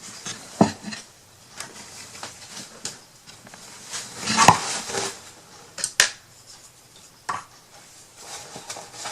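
Light clicks, taps and knocks of small craft items being handled and set down on a tabletop, with a short stretch of rustling and scraping near the middle and a sharp click soon after.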